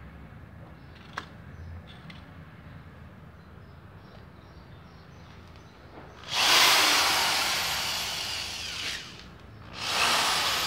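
Bosch GSR 7-14 E corded drill boring into a plastered brick wall: two long bursts of gritty grinding, the first about six seconds in and easing off, the second starting near the end. Before them, only a few faint clicks.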